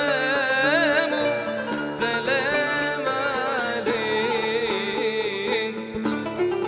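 Arabic ensemble music: an ornamented melodic line with wide vibrato over plucked qanun and oud, with a riq frame drum.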